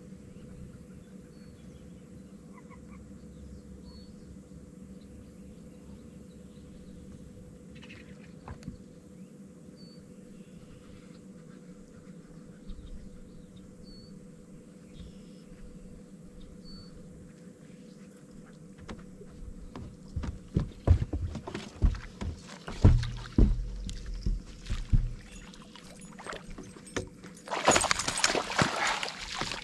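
A long quiet stretch with a steady faint hum and a faint high chirp every few seconds. Then, from about two-thirds of the way in, a run of sharp knocks and thumps. Near the end comes a loud splashing as a hooked fish is fought to the side of a bass boat.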